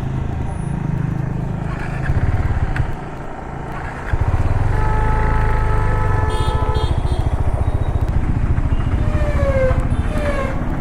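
Motorcycle engine running, getting louder and pulling away about four seconds in, then running steadily under way. A few faint pitched tones, some falling in pitch, sound over it in the second half.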